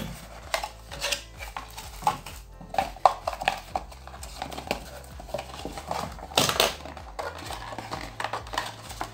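Cardboard phone box and paper inserts being handled: irregular taps, scrapes and rustles as the inner packaging is pulled out, with a longer, louder rustle about six and a half seconds in.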